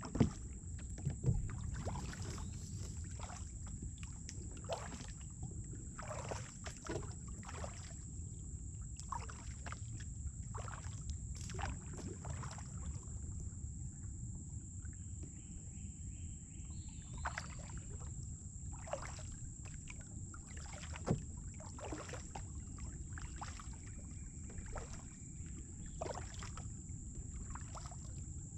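Kayak paddle strokes splashing and dripping into the water every second or two, over a steady low rumble and a steady thin high-pitched whine.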